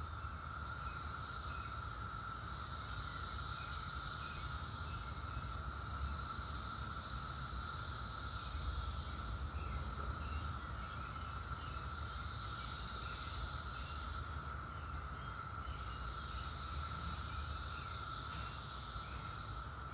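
Brood X periodical cicadas, a few stragglers out of step with the main emergence, trying to chorus. A high buzz swells and fades in waves every few seconds over a steady, lower, continuous drone.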